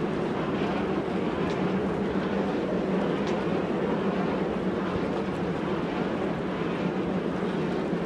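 Strong wind over a choppy sea: a steady rushing noise with a low hum underneath.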